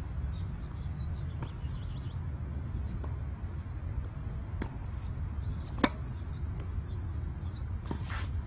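A single sharp tennis-ball pop about six seconds in, against a steady low rumble, with a few faint ticks earlier and a brief scuffing hiss near the end.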